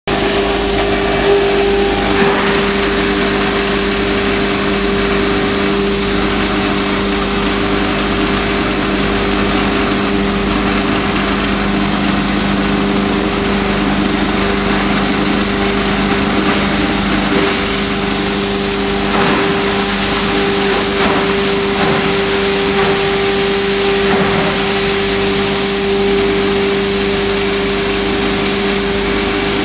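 Electric foam shredder running steadily as foam blocks are fed in: a constant motor hum under a strong, airy hiss, with a few faint irregular crackles about two-thirds of the way through.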